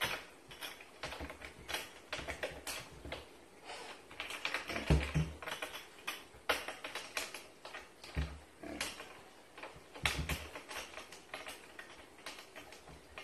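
A pig's snout working at the doors and latches of a wooden cupboard while it tries to open it: irregular clicking, tapping and rattling, with now and then a heavier knock.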